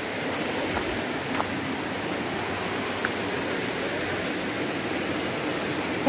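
Steady rush of a waterfall, water pouring over its drop in an even, unbroken noise.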